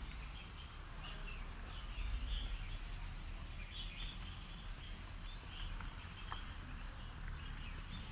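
Small birds chirping over and over, short high calls close together, over a steady low rumble.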